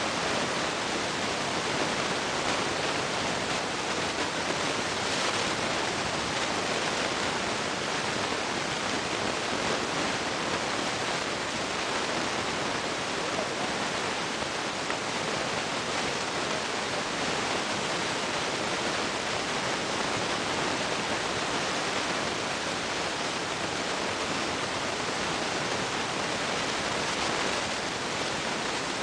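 A steady, even hiss of noise with no distinct engine note or other event standing out.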